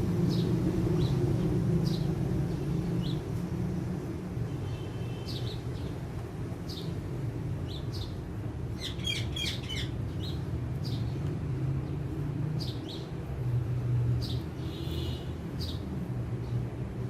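Green parrots giving short, sharp chirps every second or so, with a quick cluster of calls about nine seconds in, over a steady low rumble.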